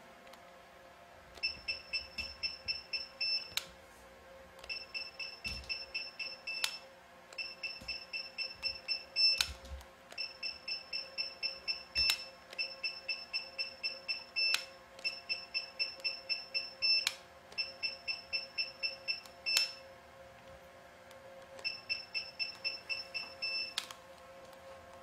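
Jeisys radiofrequency skin-tightening device beeping in stamp mode: eight runs of rapid, high beeps, about four or five a second for roughly two seconds each, each run ending in a sharp click. The beeping marks each stamp of RF energy delivered through the handpiece to the skin. A faint steady hum runs underneath.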